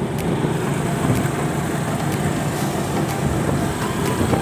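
Engine and road noise of a small open-sided vehicle heard from on board while it is being driven: a steady low rumble with a few faint, irregular clicks or rattles.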